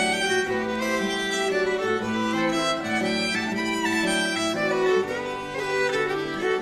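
Background music led by a fiddle playing a melody of held notes over a steady accompaniment.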